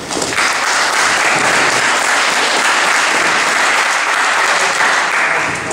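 Audience applauding, a dense steady clapping that swells in quickly at the start and dies away near the end.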